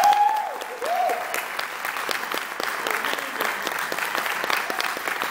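Theatre audience applauding steadily, with two rising-and-falling whoops of cheering near the start.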